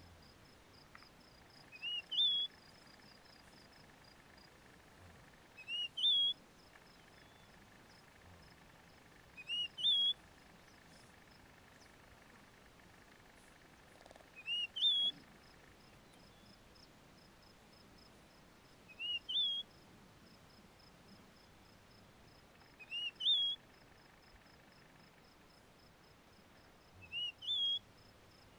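A bird repeating the same short rising call about every four seconds, seven times in all, over a faint, fast, high pulsing trill.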